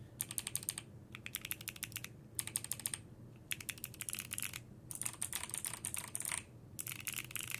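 Typing on a Bakeneko60 60% mechanical keyboard fitted with Gateron Melodic switches. It comes as rapid runs of key clicks, broken by short pauses.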